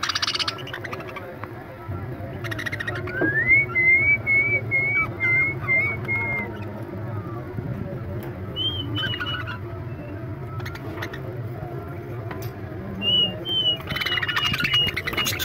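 Caged budgerigars chirping and chattering in short clicky bursts, busiest near the end, with a high, wavering whistle that rises about three seconds in and returns later.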